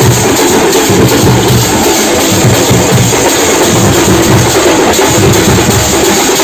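Loud, dense drumming from a drum group beating drums with sticks, with no breaks.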